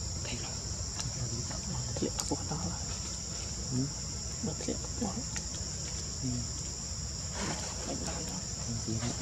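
Steady high-pitched drone of insects, with scattered short, faint calls and a few soft clicks lower in pitch.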